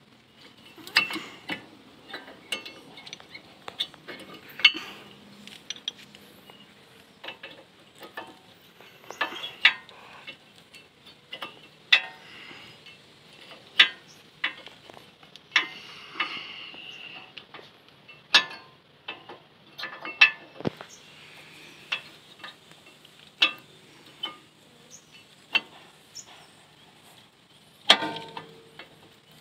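Irregular sharp metallic clicks and clinks, about one every second or two, as brake pads are seated in a Toyota Vios NCP93 front disc-brake caliper and the caliper is fitted over the new rotor.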